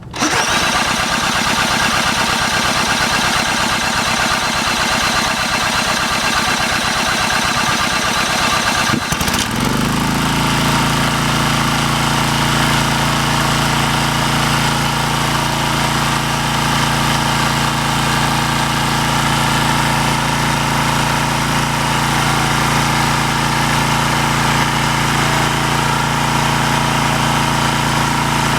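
Small gasoline engine of a vintage portable air compressor catching and running, with rapid, even firing pops. About nine seconds in the sound changes to a steadier, even-pitched running hum that continues.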